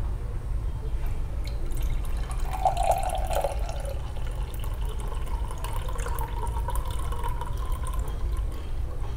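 Lychee and lemon smoothie poured from a blender jar into a drinking glass, splashing as the glass fills, starting about two seconds in. A steady low hum runs underneath.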